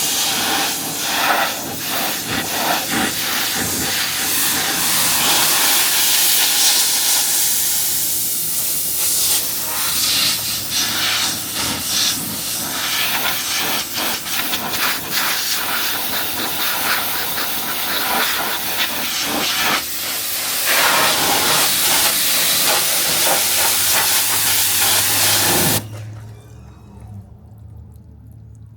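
Pressure washer jet blasting water against a car's body: a loud, steady hiss that cuts off suddenly near the end, leaving a low hum.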